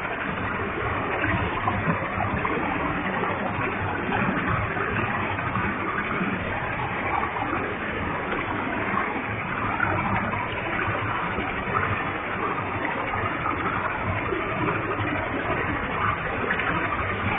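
Waterfall with a heavy flow of water: a steady, full rushing roar of falling water and spray.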